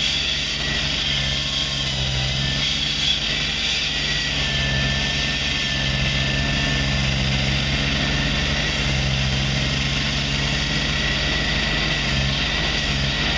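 Heavy diesel construction machinery running steadily, with a thin high whine above the engine drone.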